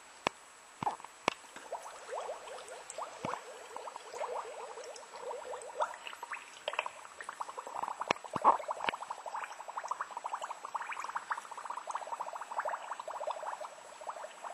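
Water gurgling and bubbling as air escapes from a RocketFlap trim-tab ram submerged in a bucket, the ram filling with water. A few sharp knocks sound in the first few seconds.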